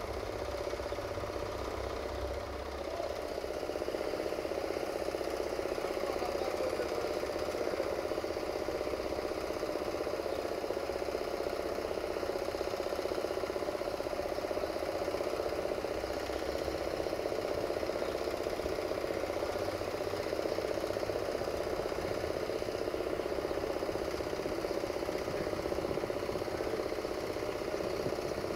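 CFR 060-DA diesel-electric locomotive's Sulzer 12LDA28 engine idling steadily, a continuous low diesel rumble that gets slightly louder about three seconds in.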